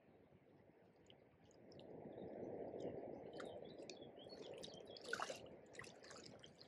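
Water sloshing and dripping as a landing net holding a barbel is worked and lifted out of a shallow river, starting about two seconds in, with a brief louder burst about five seconds in.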